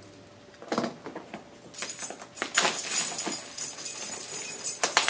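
A dog's metal collar tags jingling in a rapid, continuous run, starting about two seconds in, after a single soft knock about a second in.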